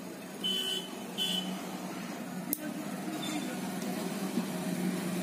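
Small bench-work sounds of tweezers fitting a component into a TV power-supply circuit board: a sharp click about two and a half seconds in, over a steady low hum. Two short high beeps come before it, within the first second and a half.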